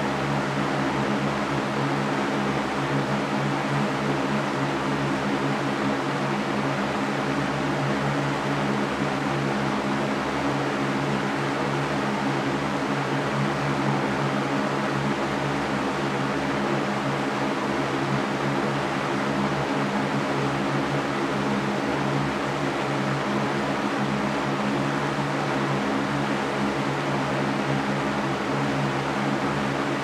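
Electric fan running steadily: a constant rush of moving air with a steady low hum underneath.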